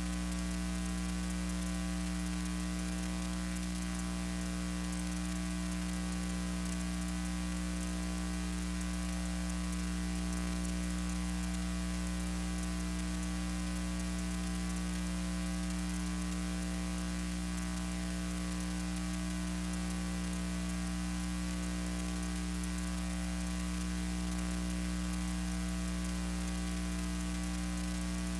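Steady electrical mains hum with overtones and a constant hiss, which never changes in level or pitch: the noise floor of a silent archival film transfer.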